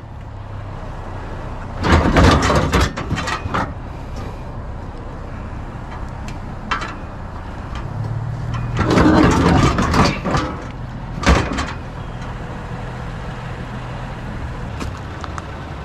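Scrap being shoved into a loaded vehicle: two bursts of clattering and scraping, then a single sharp knock, over a low hum like an idling engine.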